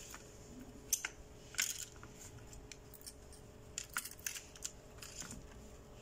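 Light clicks and short scratchy taps of an LED strip and soldering iron being handled while the iron is put to the strip's solder pads. The taps come singly and in small clusters, the loudest about a second and a half in and a run around four seconds in.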